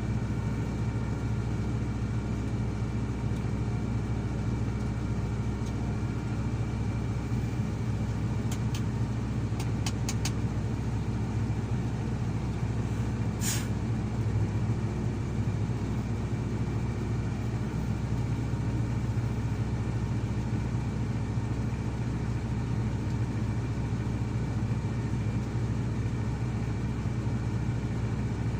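Heavy diesel engine of a Komatsu PC220 excavator running steadily under work, with a few faint ticks and one brief hiss near the middle.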